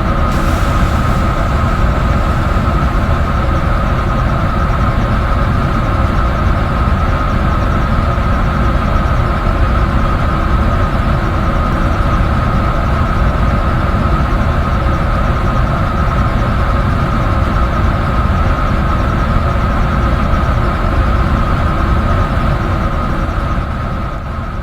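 Washing machine running: a steady rumble from the turning drum with a constant motor whine, fading away near the end.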